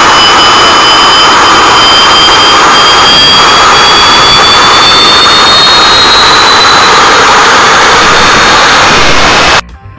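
Small homemade turbojet engine running: a loud, steady roar with a high turbine whine that climbs slowly in pitch over the first seven seconds. The roar cuts off suddenly near the end.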